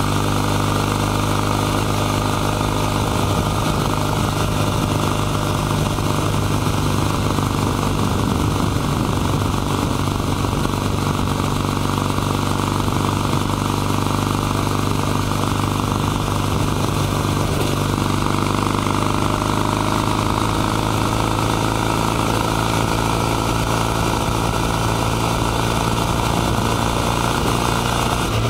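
Kawasaki W800 CAFE's air-cooled vertical-twin engine with a 360° crank, running on the road at a steady cruise, its exhaust pulsing evenly, with wind and tyre noise underneath. The engine note shifts a little in pitch about two-thirds of the way through as the throttle changes.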